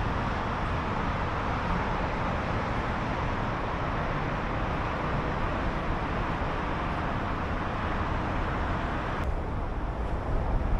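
Steady vehicle running noise, a continuous rumble and hiss with no separate events. The hiss eases about nine seconds in.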